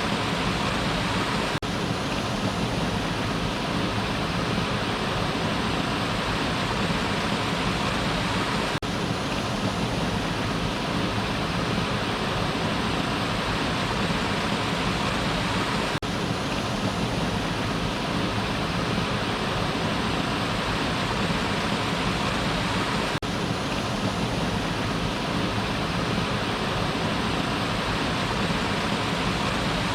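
Waterfall: water falling and rushing as a steady, even roar with no change in level.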